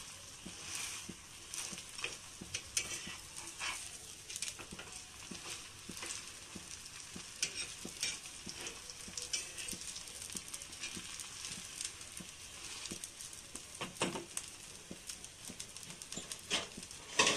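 Rice-flour pitha sizzling in oil on a flat pan, a steady crackle dotted with small clicks and light touches of a steel spatula. A louder knock comes about 14 seconds in and another near the end.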